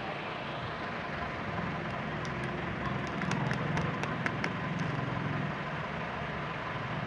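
A steady engine-like rumble with a low hum that grows a little louder partway through, and a quick run of sharp clicks or snaps in the middle.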